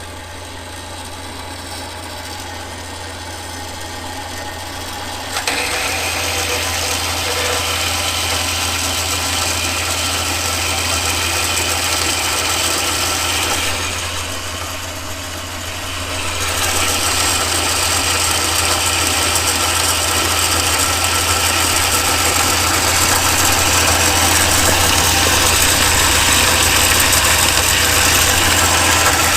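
A shop power tool running steadily. It gets louder about five seconds in and eases off briefly around the middle before picking up again.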